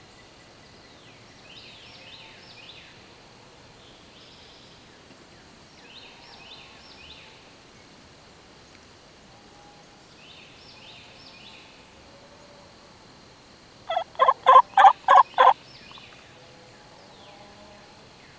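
Wild turkey gobbler gobbling once, loud, about fourteen seconds in: a fast rattle of about seven notes lasting a second and a half. Faint songbird phrases repeat every few seconds before it.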